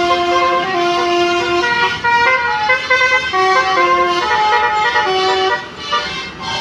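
Basuri musical bus horn playing a tune: a run of loud held notes stepping up and down, each lasting from a fraction of a second to about a second.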